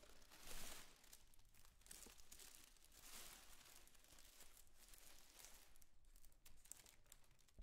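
Faint crinkling and rustling of a plastic trash bag being handled, in a series of soft, irregular swishes.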